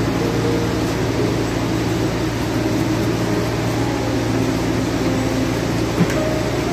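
Steady droning background music with faint held notes that change pitch every second or so. A single short click about six seconds in.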